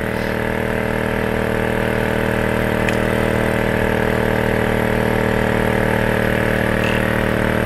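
EPAuto 12 V portable air compressor running steadily with a fast, even pulsing hum as it pumps up a car tire, from 32 toward 33 PSI.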